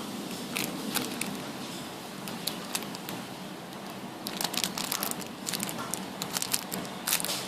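Plastic crinkling and crackling as things are handled, in irregular bursts that grow busier about halfway through.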